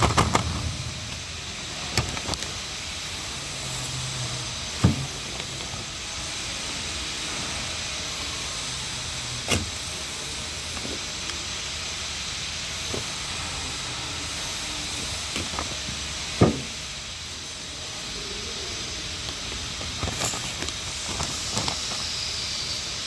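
Scattered sharp knocks and taps from hive-cleaning work, such as tools and wooden hive boxes being handled, over a steady hiss. The loudest knocks come about 5 and 16 seconds in, and a few lighter ones fall near the end.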